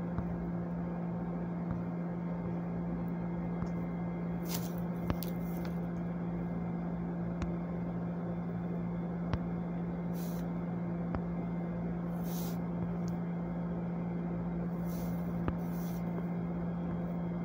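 A steady low hum at one pitch over constant background hiss, with a few faint clicks and several short soft hisses scattered through it.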